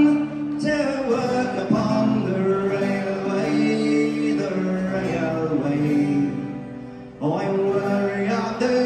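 A live folk-punk band playing, with singing over guitars, fiddle and a string section. The music drops away for a moment about six seconds in and comes back in full just after seven seconds.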